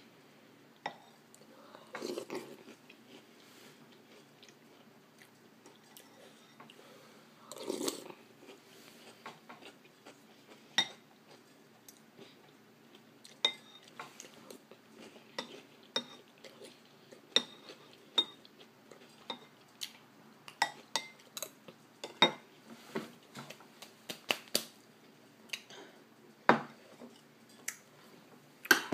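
A metal spoon clinks and scrapes irregularly against a ceramic cereal bowl as cereal is scooped and eaten, with chewing close by. There are two short, longer bursts about two and eight seconds in.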